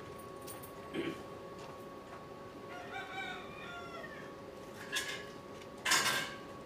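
A rooster crowing, with its call about three seconds in and a louder, harsher burst near the end, plus a few short sharp sounds, over a steady faint hum.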